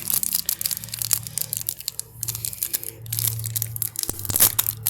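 Plastic wrappers of hockey card packs crinkling and tearing as packs are opened, with irregular crackles throughout.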